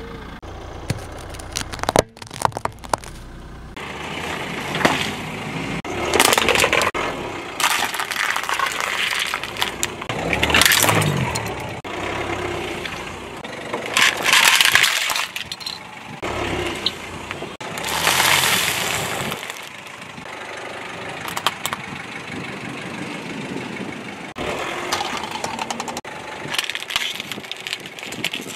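A car tyre rolling slowly over hard candy and sweets and crushing them: a series of separate crunching and cracking bursts, each lasting a second or two, several seconds apart.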